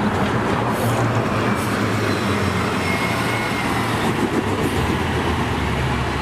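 Steady, loud rumble of a moving vehicle, with a low hum under a dense noise.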